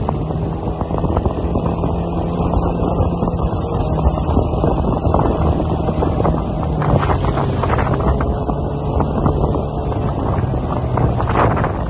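Outboard motor running steadily as a small boat travels at speed over choppy water, with wind buffeting the microphone and water rushing and splashing along the hull.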